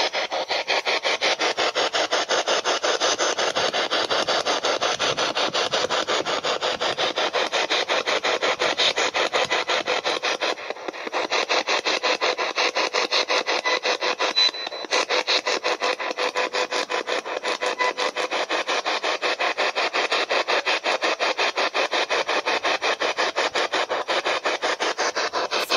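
Spirit box, a small handheld radio scanning rapidly through the frequencies: a fast, even, choppy pulsing of radio static, several chops a second, dipping briefly about eleven and fifteen seconds in.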